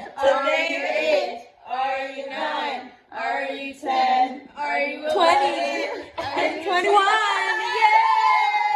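A few voices singing together without accompaniment, in short phrases, ending on one long held note.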